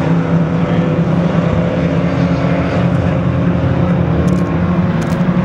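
Engines of several small race cars running hard on track, blending into a steady, loud drone that shifts only slightly in pitch.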